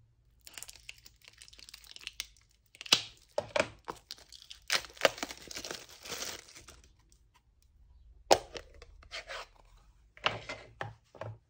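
Clear plastic shrink wrap being torn and crinkled off a new Stampin' Pad ink pad, in irregular crackling bursts for several seconds. A sharp click follows about eight seconds in, and a few short knocks near the end, as the plastic pad case is opened and handled.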